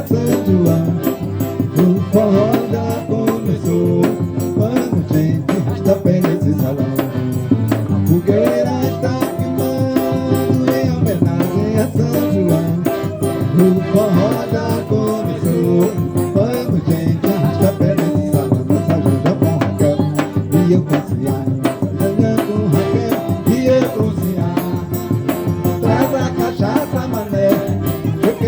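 A forró band playing live: a pitched melody over a steady, busy percussion rhythm.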